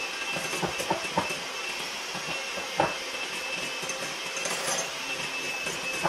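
Electric hand mixer running at a steady speed, whipping egg whites in a bowl: an even motor whine with a whirring hiss, and a few sharp clicks as the beaters knock against the bowl.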